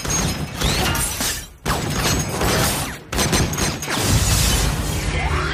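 Action-film battle sound effects: dense blasts and crashing debris noise from explosions, broken off abruptly about a second and a half in and again about three seconds in, with a deep rumble from about four seconds.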